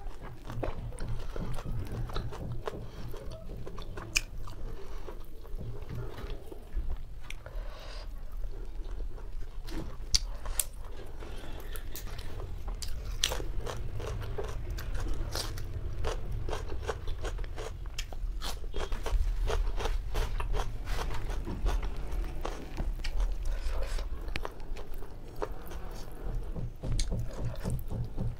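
Eating whole roasted chicken: chewing and biting, with a close, steady run of small crunches and wet clicks.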